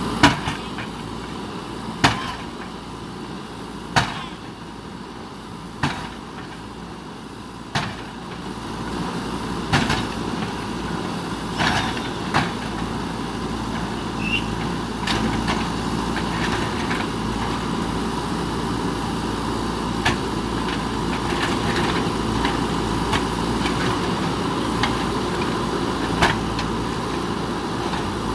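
JCB 3DX backhoe loader's diesel engine running as its bucket knocks against concrete: sharp knocks about every two seconds at first. About nine seconds in, the engine gets louder and the knocks become fewer and irregular.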